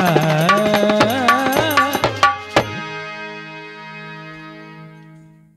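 Male singer's devotional khyal with hand drum and instrumental accompaniment, the voice bending through a long held phrase over sharp drum strokes. About two and a half seconds in, the drumming ends on a final stroke and a held chord rings on, fading out: the close of the song.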